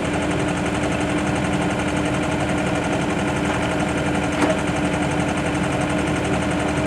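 Heavy equipment diesel engine running steadily at constant speed under a pulling load, with a single short knock about four and a half seconds in.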